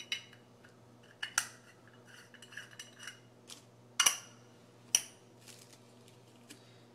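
A few sharp clicks and clinks of small hard objects being handled, the loudest about four seconds in and again a second later, with fainter ticks in between, over a faint steady hum.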